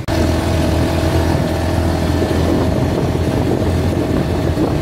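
Open dune buggy being driven at a steady speed: the engine runs evenly under road and rolling noise.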